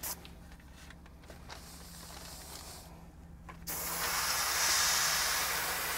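Badger Vega 2000 siphon-feed airbrush spraying paint at about 50 PSI: a steady rush of air hiss starts suddenly about two-thirds of the way in, over a faint low hum.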